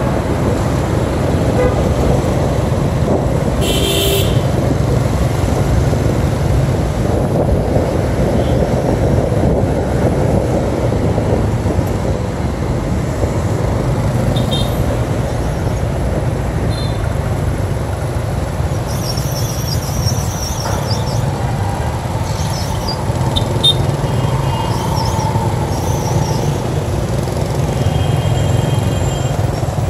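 Riding a motorbike through city traffic: a steady rumble of engine and road noise, with a few short horn toots from nearby vehicles.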